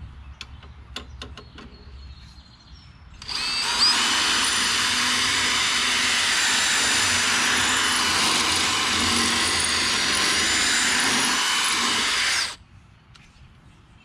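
DeWalt cordless drill boring out a hole in a push mower's metal handle to fit the thicker Z-bend of a replacement drive cable. After a few light clicks, the drill spins up and runs steadily for about nine seconds, then cuts off suddenly.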